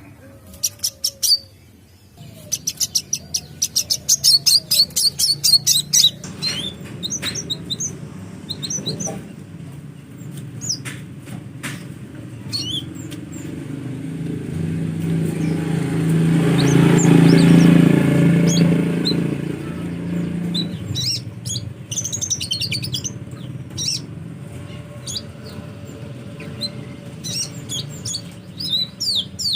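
Sunbird (Indonesian 'kolibri') chirping: rapid runs of high, thin chirps for the first several seconds, then scattered chirps later. A low rumbling noise swells up in the middle and fades again, drowning out the bird for a while.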